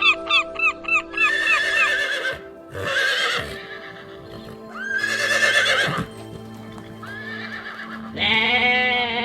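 A goose honking in quick succession for about the first second, then a horse whinnying five times, the last call longest with a shaky, quavering pitch, over steady background music.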